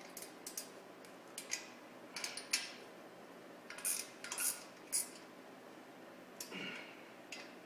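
Irregular metallic clinks and scrapes of a wrench working the bolts of the steel bar clamps on a chainsaw mill, as the clamp is tightened onto the chainsaw bar.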